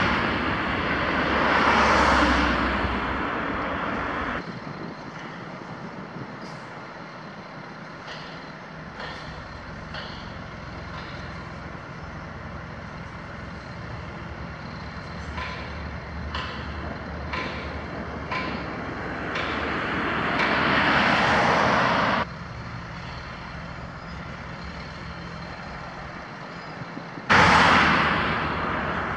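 Road vehicles driving past close by: three loud swells of tyre and engine noise that rise and fall, with quieter steady background and a few faint knocks between them.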